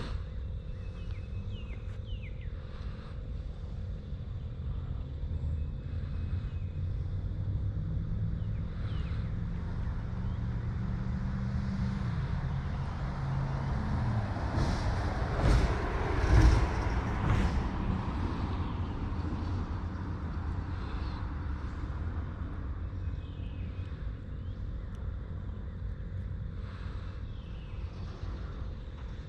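A motor vehicle going past, its engine growing louder and then fading, loudest about halfway through.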